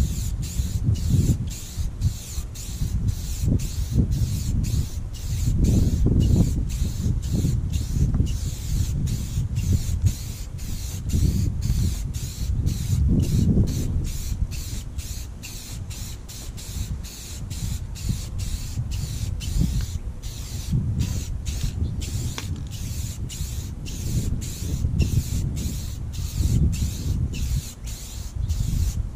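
Aerosol can of clear spray paint hissing steadily as a coat is sprayed onto a plastic headlight lens, over a fluctuating low rumble of wind on the microphone.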